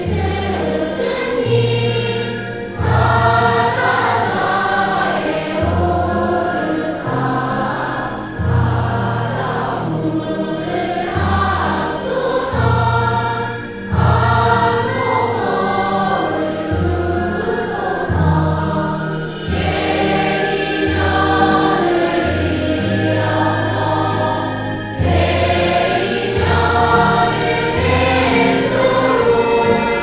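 Background music: a choir singing over instrumental accompaniment, with a bass line that steps to a new note about every second.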